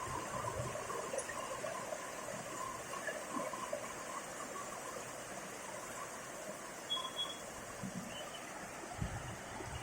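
Heavy rain falling steadily, an even wash of water noise with no thunder.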